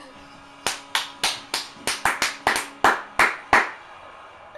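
Hands clapping: about a dozen sharp, separate claps in quick succession over some three seconds, about three or four a second, in celebration of a goal.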